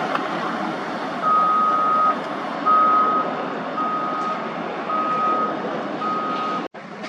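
Backup alarm of a construction vehicle beeping five times at one steady pitch, about one beep a second, over a steady background of site and traffic noise.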